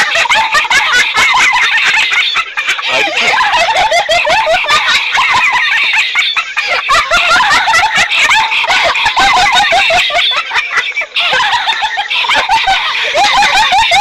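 Laughter sound effect: high-pitched giggling and snickering in quick bursts, going on almost without pause.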